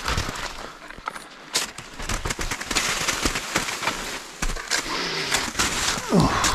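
Footsteps pushing through dense forest undergrowth, with dry twigs and branches snapping and crackling underfoot and against the body.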